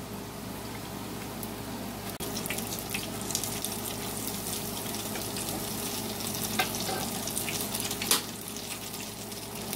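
Battered broccoli florets frying in a skillet of hot oil: a steady crackling sizzle with scattered sharp pops, the loudest about eight seconds in.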